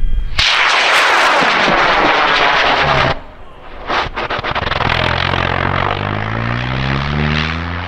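M1780 high-power rocket motor burning at lift-off: a loud rushing noise starts a moment in and drops off sharply after about three seconds. A sharp crack comes about four seconds in, then the rushing noise returns with a rising, sweeping tone in it.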